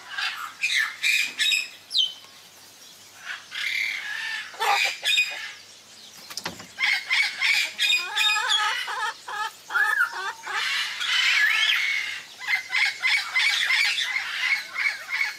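Caracal kitten giving rapid series of short, high, bird-like cries in several bouts as it bites and chews at a hand and shoe.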